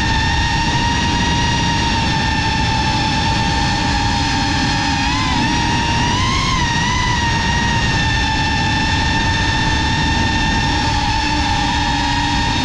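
FPV cinewhoop drone's brushless motors and propellers whining steadily in flight, with two brief rises in pitch about halfway through as the throttle is pushed, over a rushing of air.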